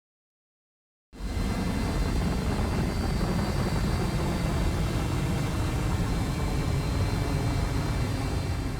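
A steady, low, engine-like rumble with faint high steady whines in it, starting suddenly about a second in after silence.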